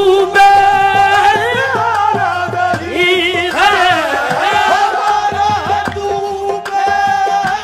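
Live qawwali music: harmonium holding steady notes under a singer's voice that slides and wavers in ornamented runs, with hand-drum accompaniment.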